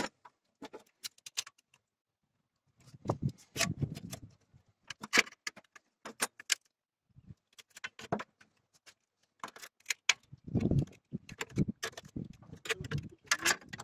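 Irregular light metallic clinks and crinkles of thin galvanised sheet metal being bent and worked with pliers, shaping a replacement brake dust shield, with a few duller knocks of the sheet against the steel table.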